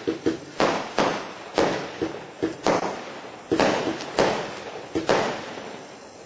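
Black Cat Colossus single-ignition firework cake firing shot after shot: sharp bangs about every half second to a second, each trailing off in a hissing crackle. The shots stop about five seconds in.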